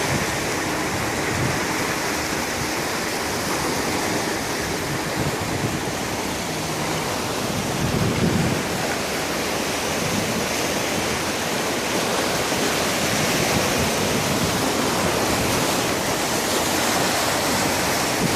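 Mediterranean sea surf: a steady rush of waves washing in, with a brief low rumble about eight seconds in.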